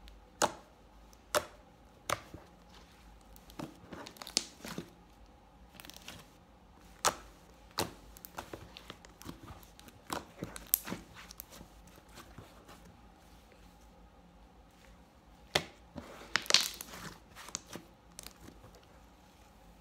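Sand slime being kneaded and folded by hand: irregular sharp clicks and pops, with a denser burst of crackling about sixteen seconds in.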